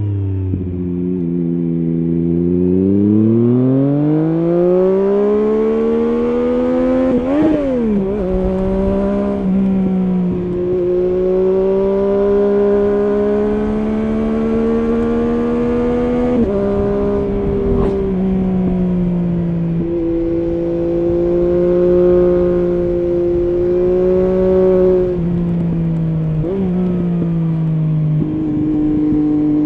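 Triumph Street Triple S three-cylinder engine through an SC Project SC1-R slip-on exhaust with its dB-killer fitted, heard on the move. The engine note climbs steadily from low revs under acceleration, changes gear about seven seconds in, then cruises at fairly steady revs. There are small throttle changes and a couple of drops in pitch later on.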